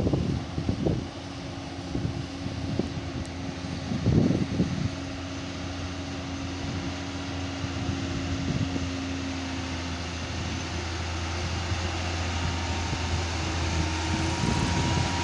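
Diesel engine of a Hino FM8J lorry running steadily as the truck drives by, its hum growing louder toward the end as the truck comes close. Wind buffets the microphone at the start and again about four seconds in.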